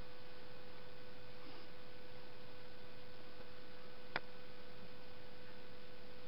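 Steady hiss with a low electrical hum, and one sharp click about four seconds in.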